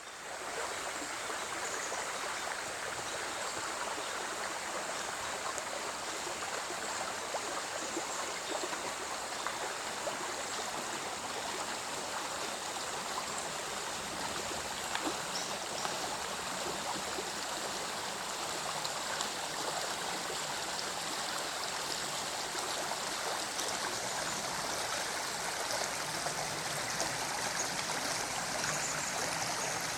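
A stream of water flowing steadily, an even rushing and trickling without pause.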